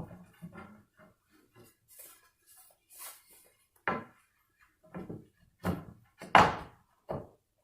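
Pre-finished maple flooring planks knocking and clattering against the floor as they are handled and test-fitted into the gap. Light taps at first, then a series of sharper wooden knocks, the loudest near the end.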